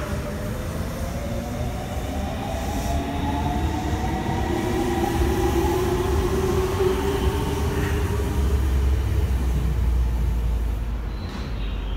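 Senboku Rapid Railway 7000 series electric train accelerating away from a station, its Hitachi three-level IGBT VVVF inverter and traction motors giving several slowly rising whines over the rumble of wheels on rail. The sound drops off near the end as the last car pulls away.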